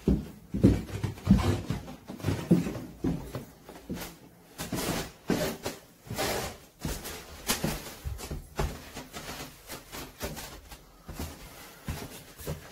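Footsteps and handling rustle from a handheld phone carried through a house: a run of soft thumps about every half second at first, then irregular rustling and scraping strokes.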